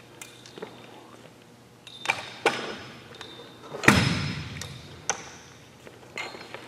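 Metal volleyball net pole knocking and clanking as it is handled and set upright in its floor sleeve, a few sharp knocks with the loudest thud about four seconds in ringing out in the gym's echo.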